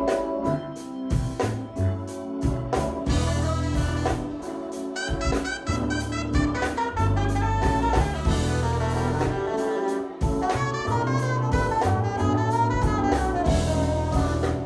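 Live funk-jazz band playing an improvised instrumental groove: drum kit and electric bass with keyboards and saxophone over them.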